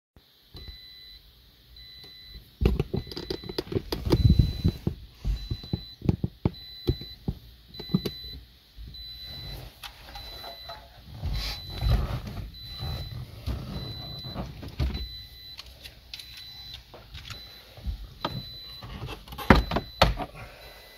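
Plastic dashboard trim being handled and pried loose: clicks, knocks and rattles, with a loud clatter near the end as the trim panel around the radio comes free. Under it a car warning chime beeps steadily at an even pace.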